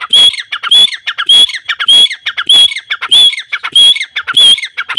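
Grey francolin (teetar) calling loudly: the same phrase repeated over and over, about one every 0.6 seconds, each a few short notes running up into a loud, clear high note.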